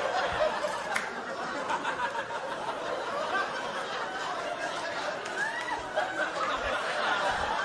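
A large audience laughing steadily, many voices overlapping.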